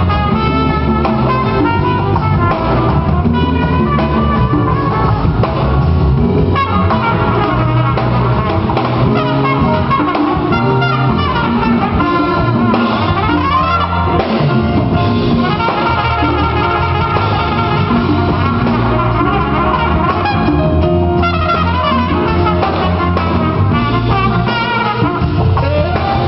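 Live jazz band: a trumpet solo over drum kit and rhythm section, with fast runs and sweeping glides up and down near the middle.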